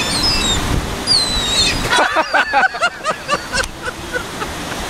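Seagulls calling as they gather for food: a few high falling whistled notes, then about two seconds in a quick flurry of short squawks, over a steady background rush.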